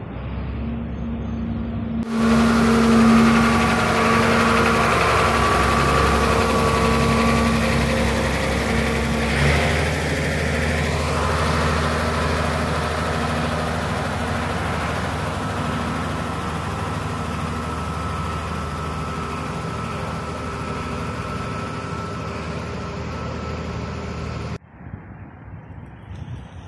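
Engine of an asphalt road roller running steadily close by as it drives over fresh asphalt, a loud hum with a steady drone. It gets suddenly louder about two seconds in and cuts off abruptly near the end, leaving quieter street noise.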